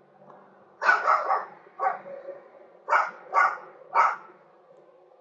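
A dog barking, about seven short barks in quick succession: a tight cluster of three about a second in, then single barks spaced roughly half a second to a second apart.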